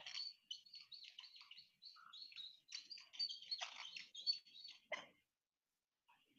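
Marker squeaking and scratching on a whiteboard as a word is written: a quick run of short, high, faint squeaks that stops about five seconds in.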